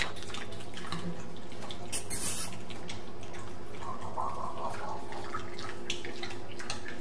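Pet pig snuffling and sniffing wetly right at the microphone, with scattered small clicks and a short sharp sniff about two seconds in, over a steady low hum.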